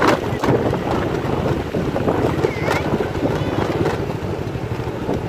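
Motor scooter engine running along under heavy wind noise on the microphone.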